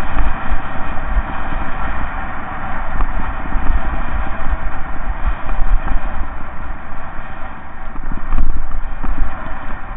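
Mountain bike rolling fast down a loose gravel track: tyres crunching over stones and the bike rattling, with a heavy, uneven low rumble that swells and fades.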